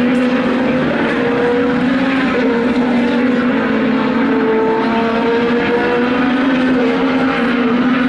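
IndyCar twin-turbo V6 engine running hard on the circuit, heard from the hillside as a steady engine note whose pitch steps up and down a few times.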